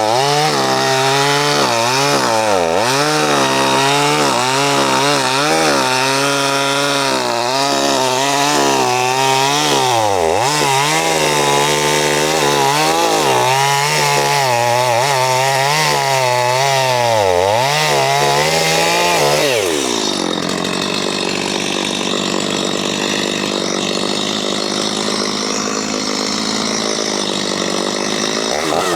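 Two-stroke chainsaw cutting wood, its engine pitch rising and falling as the bar loads and unloads in the cut. About twenty seconds in, the engine drops to a steadier, slightly quieter run.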